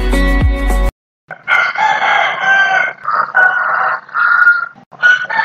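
Music cuts off about a second in; after a short pause, roosters crow several times in quick succession, long crows overlapping one another.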